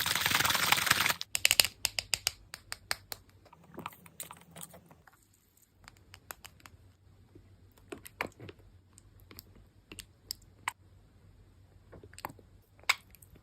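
Slime being squeezed and poked by hand: a short burst of squelching noise at the start, then a run of sharp, irregular clicks and crackles that grow sparser.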